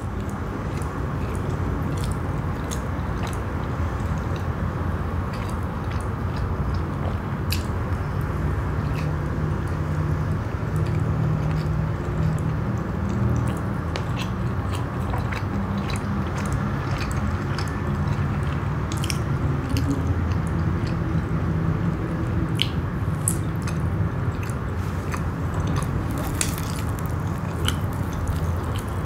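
Close-miked chewing of soft cheese naan with the mouth closed: many small wet mouth clicks over a steady low hum.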